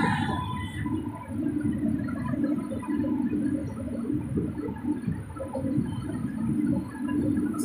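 Passenger train running, heard from on board: a low, uneven rumble and rush of the coach moving along the track.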